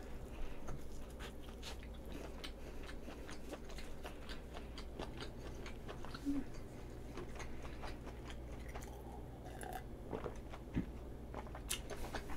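A person chewing a mouthful of soft bread close to the microphone, with faint, irregular mouth clicks and smacks.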